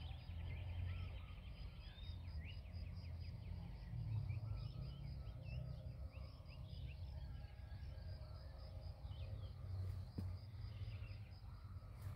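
Birds chirping and calling in many short, quick notes, with a rapid trill at the start, over a steady low rumble.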